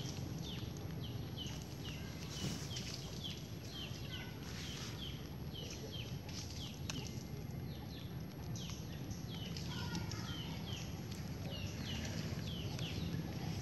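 Steady run of short, high, downward-sliding chirps from a small animal, about two or three a second, over a steady low rumble.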